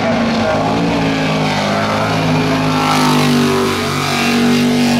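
V8 jet sprint boat running hard through a course of tight turns, its engine note shifting up and down with the throttle.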